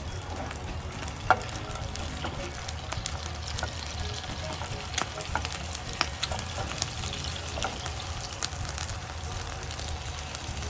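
Egg frying in oil with a little added water in a stainless steel frying pan, sizzling steadily with scattered crackles and pops, the sharpest pop about a second in. The water makes the egg steam-fry so that its edges do not burn.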